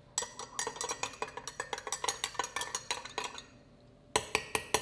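Bar spoon stirring a hot toddy in a glass mug to dissolve the honey, clinking quickly and steadily against the glass for about three seconds. After a short pause come a few sharper clinks near the end.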